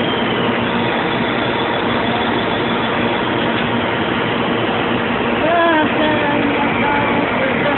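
CNC lathe running through a threading cycle: a steady, loud machine noise, with a brief voice about five and a half seconds in.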